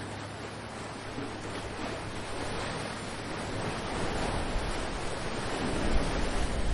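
Ocean surf washing in, swelling louder over the last few seconds, with wind rumbling on the microphone.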